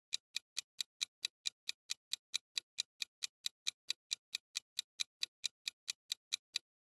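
Clock-ticking countdown timer sound effect: crisp, even ticks at about four and a half a second, marking the time left to answer, stopping just before the end.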